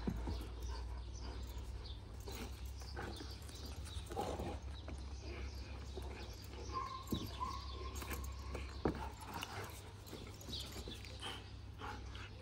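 Two young Kangal dogs play-fighting, heard faintly: scattered short scuffles, brief dog vocalisations and sharp clicks of claws on tile, over a steady low rumble.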